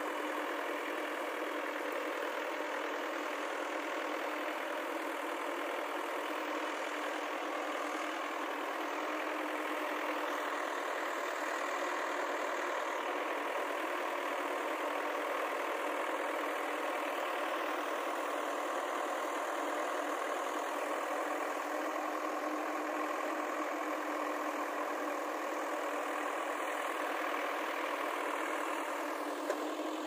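JCB 3DX backhoe loader's diesel engine running steadily while the backhoe arm digs and swings a loaded bucket.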